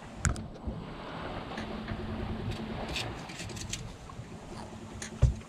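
Steady wind and water noise aboard a sailboat under way, with a few sharp knocks just after the start as the camera is handled. A single loud thump comes near the end.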